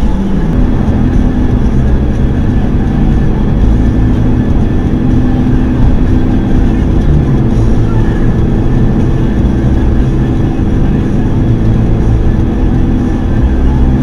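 Steady road and engine noise inside a car cruising on a highway, picked up by the dashcam's microphone in the cabin.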